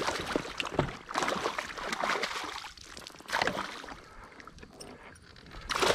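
Hooked bowfin thrashing at the water's surface beside a kayak, splashing in repeated bursts a second or two apart, with a loud burst near the end.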